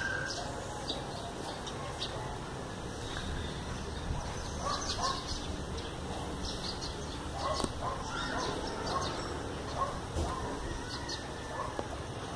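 Birds chirping and calling on and off over a steady low rumble.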